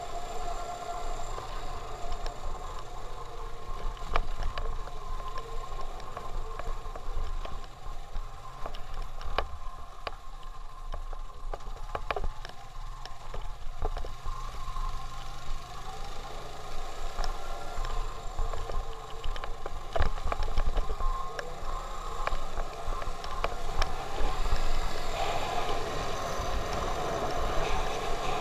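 Motorcycle engine running at a low riding speed, with wind rumbling on the microphone. Sharp knocks and rattles come now and then as the bike goes over the potholed road.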